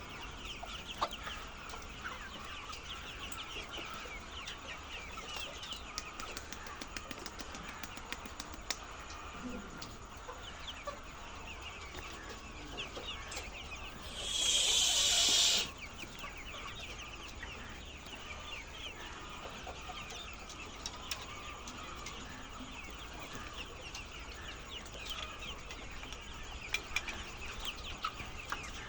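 A flock of egg-laying hens clucking and chattering continuously, many short calls overlapping. About halfway through there is one loud burst of hissing noise lasting a second and a half.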